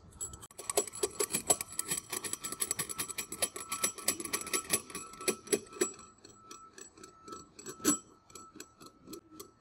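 Ratchet wrench clicking rapidly while unscrewing the sleeve of a belt-cleaner tensioner; the clicks thin out after about six seconds.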